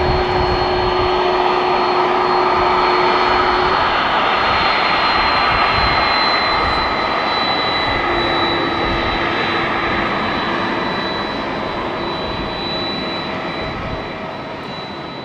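Boeing 767-300ER's twin jet engines at takeoff power: a steady rush with a thin high whine, fading gradually through the second half as the airliner moves away.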